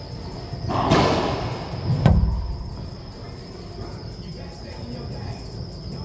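Racquetball play in an enclosed court: a loud burst about a second in, then a sharp crack of the ball being struck or hitting a wall about two seconds in, with a hollow booming ring from the court after it. A faint steady high-pitched whine sits underneath.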